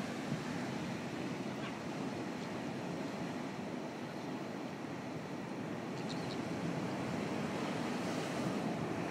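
Steady wash of ocean surf and seawater moving over a shallow rock pool, with a few faint ticks about six seconds in.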